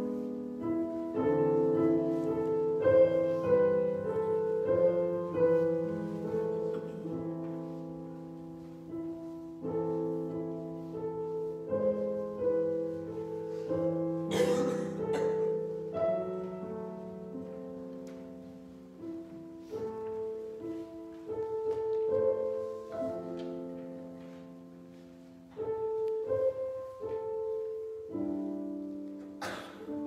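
Piano music played in slow, held chords, the notes ringing and fading before each new chord.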